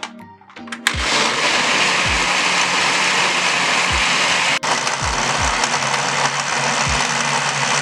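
Electric blender running steadily at high speed. It switches on abruptly about a second in and cuts out for an instant near the middle.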